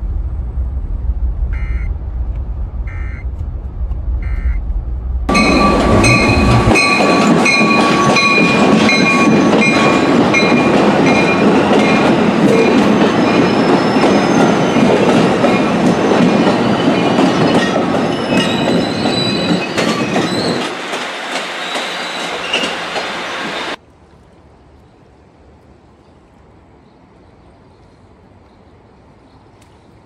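Bi-level passenger train rolling past close by from about 5 s in: loud wheel clatter with high ringing tones that break in a regular rhythm. Before it there is a low in-car road rumble. It cuts off suddenly near 24 s to a faint steady hush.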